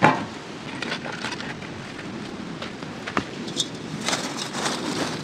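Open wood fire crackling and popping under a pot cooking on dum. There is a ringing knock at the very start, and a cluster of clicks and clinks about four seconds in as a perforated metal plate is pushed off the glowing coals.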